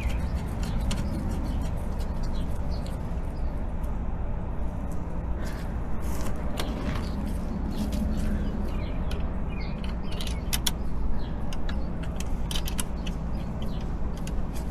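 Scattered small metal clicks and taps of hand tools and bolts being worked on a motorcycle's gear shift linkage, over a steady low hum.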